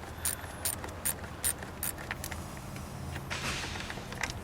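Hand work on a car battery's fittings under the rear seat: a run of about six sharp light clicks, two or three a second, then a short scraping rustle about three seconds in.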